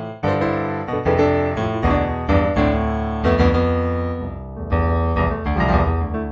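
Improvised solo piano music, chords and melody notes struck and left to ring.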